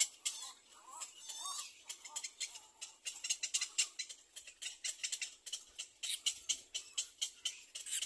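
Birds chirping in quick, irregular high-pitched squeaks, several a second.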